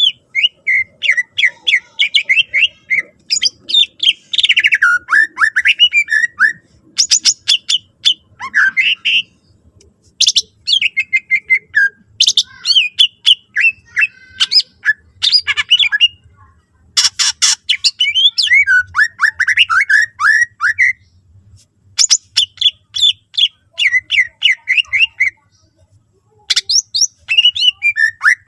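Greater green leafbird (cucak ijo) singing loudly in rapid phrases of fast, wavering and down-slurred notes mixed with sharp clicking calls, broken by short pauses.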